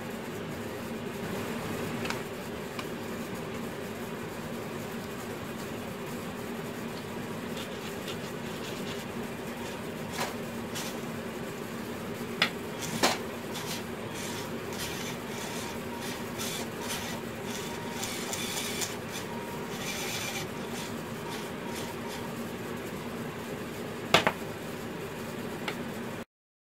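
A steady low hum, with a few sharp clicks and a stretch of light plastic rattling as a small RC model truck is handled. The sharpest click comes near the end.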